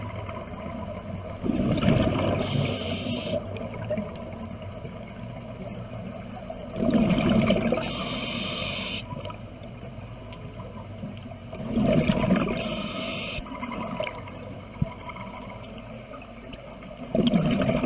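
Scuba diver breathing underwater through a regulator: a bubbling rush and a hiss come round together about every five seconds, four times.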